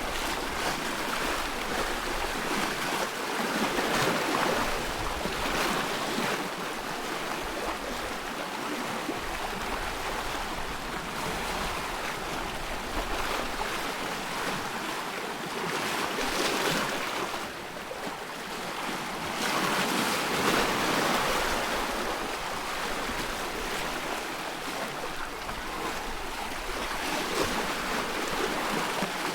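Choppy loch water splashing and lapping in small waves, swelling and fading every few seconds, over a low wind rumble.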